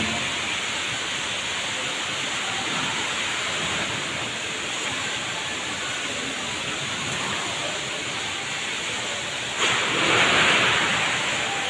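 Steady rushing indoor background noise with no distinct events. A louder rush comes in suddenly near the end and lasts about a second.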